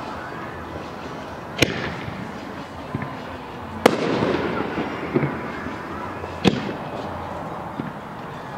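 Aerial firework shells bursting overhead: three sharp booms about two to three seconds apart, each followed by echo and crackling, with a few smaller pops between them.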